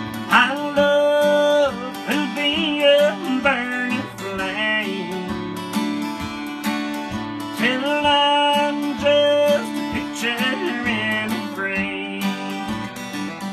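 Acoustic guitar playing an instrumental break in a slow ballad: held chords underneath, with a melody above that slides up into its notes.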